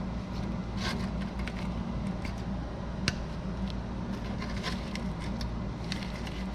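Scattered light clicks and scrapes of hand tools being handled on rusted front suspension parts, the sharpest about three seconds in, over a steady low hum.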